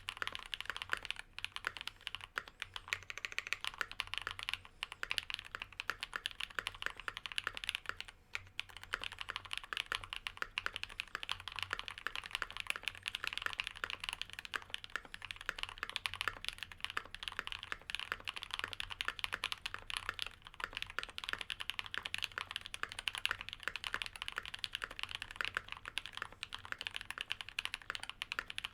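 Fast, continuous typing on an Ikki68 Aurora gasket-mount mechanical keyboard with lubed linear Cherry MX Black switches (Kailh black stems) and GMK keycaps: a dense stream of keystrokes, with brief pauses about a second in and around eight seconds in.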